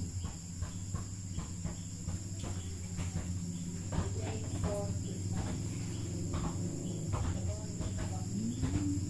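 Crickets chirring steadily over a low steady hum, with short knocks and clatter of things being set down.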